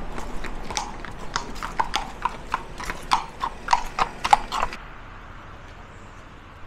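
Hooves of two horses clip-clopping on an asphalt road as they walk past, several strikes a second, growing louder as they come close. The hoofbeats cut off suddenly just before five seconds in, leaving a quieter steady rushing background.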